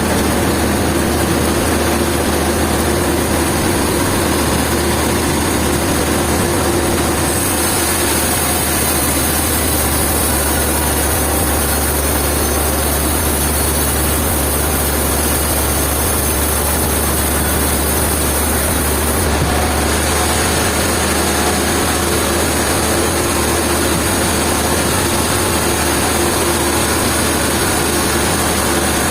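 A heavy engine running steadily at idle, with an even low hum and no change in load.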